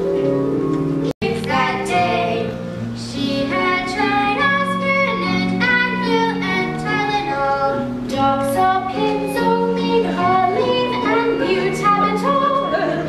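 A woman singing a stage-musical song over instrumental accompaniment, with held notes. The sound drops out for an instant about a second in.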